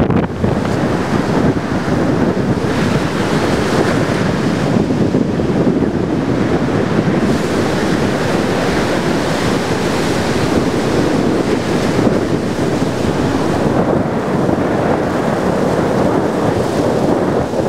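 Strong, gusty hurricane wind buffeting the microphone over breaking surf, a steady loud rush without a break.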